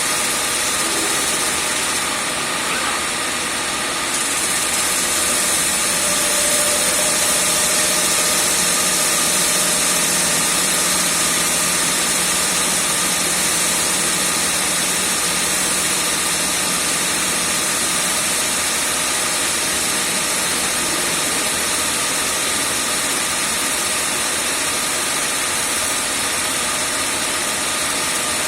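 A grinder running steadily: a continuous mechanical noise with a strong high hiss and a few faint steady tones, brightening slightly about four seconds in.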